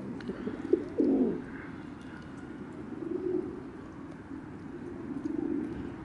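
Feral rock pigeons cooing: one louder, low coo about a second in, then softer cooing.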